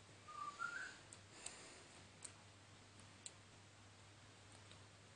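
Near silence with a low steady hum and a few faint, scattered clicks from rubber loom bands being worked by hand, plus a brief faint rising squeak about half a second in.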